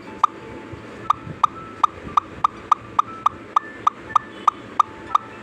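A steady run of short, sharp pitched clicks, about three to four a second, with a gap of about a second near the start.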